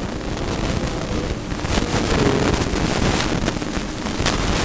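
Scratchy, irregular strokes of writing on a surface, over a steady low rumble of background noise.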